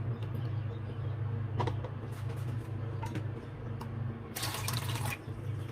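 Kitchen sounds: a steady low hum with a few light clicks, then a short burst of running or splashing water about four and a half seconds in, lasting under a second.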